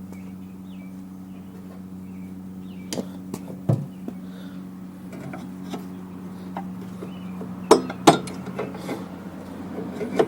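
Sharp metallic clicks and clinks of hands and tools working the idler/brake arm spring off a snowblower's auger belt pulley, the two loudest a little before the end, over a steady low background hum.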